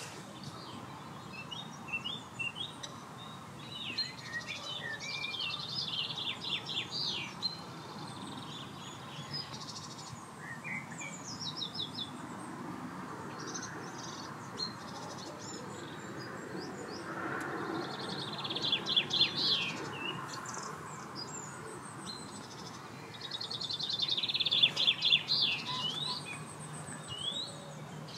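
Songbirds singing around a lake: repeated high chirps and quick trills from more than one bird, coming and going, loudest about two-thirds of the way through and again near the end.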